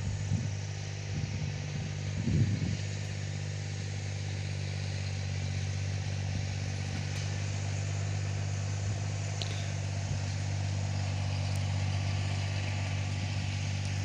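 A steady low mechanical hum runs throughout. Over it come a few knocks and scrapes of metal parts being handled and pressed together on a rotary hammer's gearbox during reassembly, the loudest about two and a half seconds in.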